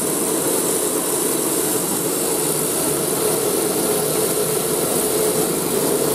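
Cotton candy machine running: its motor and spinner head whir at speed in a steady mechanical hum.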